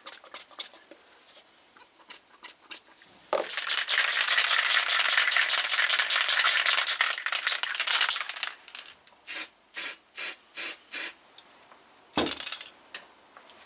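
Aerosol spray can hissing as a freshly de-rusted nut is spray-painted: one long spray of about five seconds, then about six short bursts.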